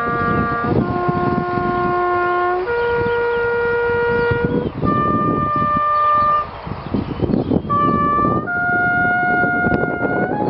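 Solo trumpet playing a slow melody of long held notes, each about two seconds, stepping up and down in pitch, with a short note near the end, over an uneven low rumble.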